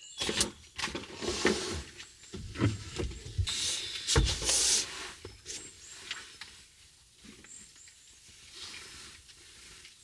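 Fabric and bedding rustling with scattered clicks and knocks as things are handled inside a small car, busiest in the first half and quieter after.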